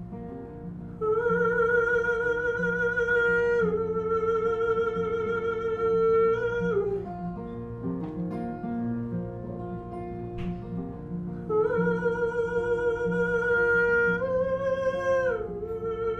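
Acoustic guitar playing chords under two long, wavering wordless sung notes, each held for several seconds and sliding down at its end.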